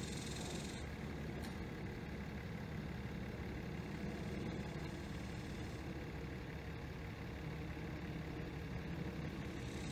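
Steady low rumble of an idling vehicle engine, with a high hiss that stops about a second in and comes back near the end.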